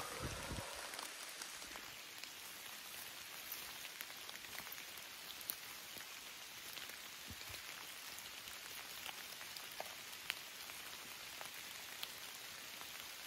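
Light rain falling on the leaf-covered forest floor: a steady hiss with scattered single drops ticking now and then. There is a brief low bump of camera handling right at the start.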